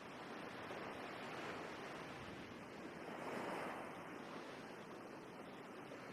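Faint sea waves washing, with a gentle swell a little past the middle.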